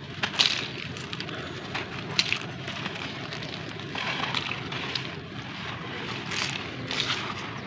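Sand-cement lumps crumbling in a hand, grains and dust pouring and crackling onto a loose heap, with sharper crunches about half a second in, just after two seconds, and twice more near the end, over a low steady rumble.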